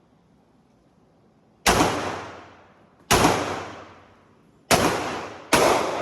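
Taurus G2C pistol fired four times at uneven intervals, each sharp shot followed by a long echoing decay.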